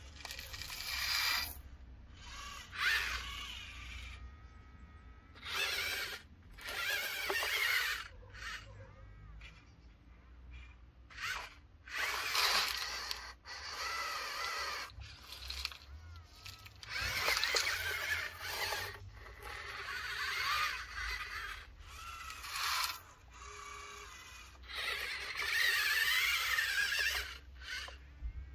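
Small electric motors and plastic gearboxes of radio-controlled construction models whining in repeated bursts of a second or two, with short pauses between.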